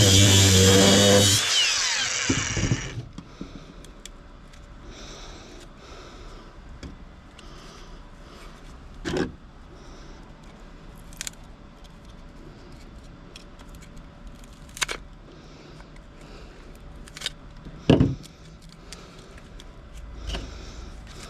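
A power tool runs at a steady pitch, then is switched off about a second and a half in and winds down. After that, scrap is handled, with a few sharp knocks.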